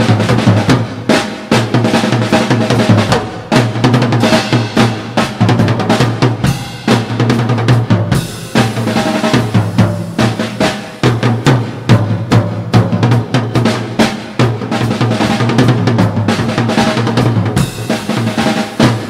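Drum kit solo: rapid, unbroken strokes on snare and bass drum, with a brighter cymbal wash coming in about eight seconds in and again near the end.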